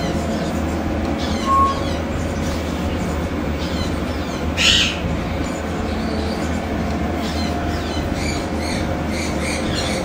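Steady machine hum in an incubator room, with faint bird chirps here and there and one louder, short bird squawk about halfway through.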